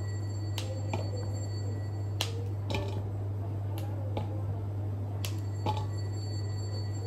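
Short, sharp clicks and snaps from fingers picking and breaking small pieces of food over a steel bowl, about eight at uneven intervals, over a steady low hum.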